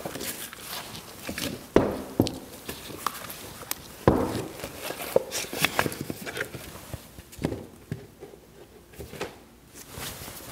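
Footsteps and scattered knocks on a wooden floor, with paper rustling as painted paper sheets are picked up, handled and set down; the sharpest knocks come about two and four seconds in, and it goes quieter near the end.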